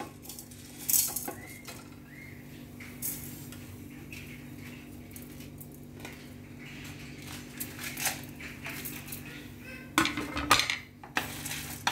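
Whole spices (black peppercorns, cumin, fennel seeds and dried red chillies) tipped from a plate into an aluminium kadai for dry-roasting, giving scattered clinks and scrapes of the plate and spices against the metal pan. The loudest clatter comes about ten seconds in.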